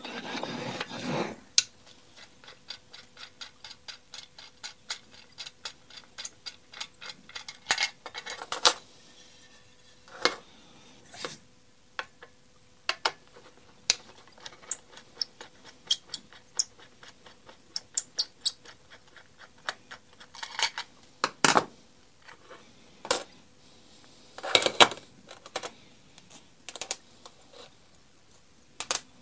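Light, rapid ticking, a few ticks a second, as a screwdriver turns out the screws holding the spring-loaded paper-clamp levers on the aluminium base plate of a Makita DBO380Z orbital sander, with now and then a louder clink as a lever, spring or screw is put down on the metal workbench.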